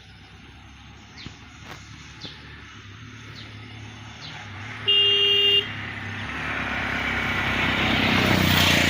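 Small birds chirping briefly, then one short vehicle horn toot about five seconds in, the loudest sound. After it a vehicle approaches, its noise growing steadily louder.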